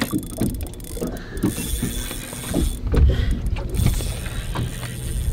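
Spinning reel being cranked to bring up a hooked lake trout, its gears whirring and clicking with each turn of the handle.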